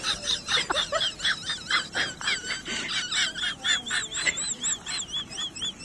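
Small birds chirping, a quick run of short high-pitched calls, several a second, some with a warbling, wavering pitch.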